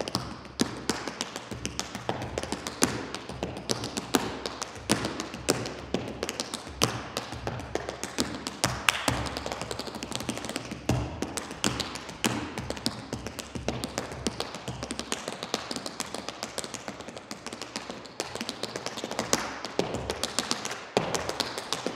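Tap shoes striking the floor in fast tap dancing: a continuous stream of sharp metal taps and heavier stamps, many strikes a second in a shifting rhythm.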